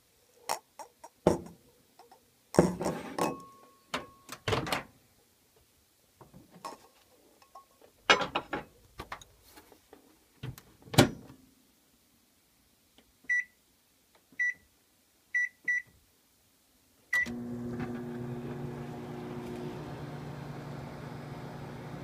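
Clunks and knocks of a bowl and the microwave door being handled, then four short keypad beeps and a last beep as the microwave oven starts. It then runs with a steady hum, heating two whole eggs in their shells.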